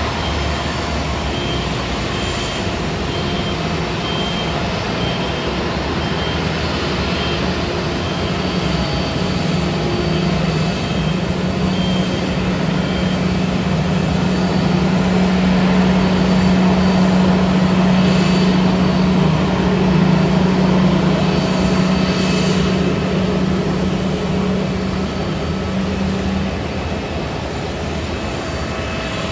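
Airbus A330-900's Rolls-Royce Trent 7000 jet engines at taxi power, a steady rumble with a low hum that swells as the airliner passes close, loudest about halfway through, then eases. A faint high beep repeats about once a second in the first third.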